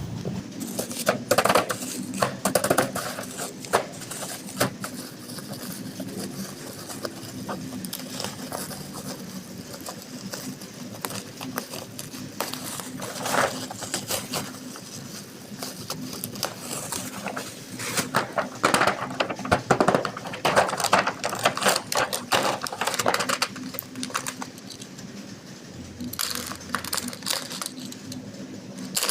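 Plastic toy pieces and packaging clicking and rattling as they are handled, in irregular clusters, over a faint steady low hum.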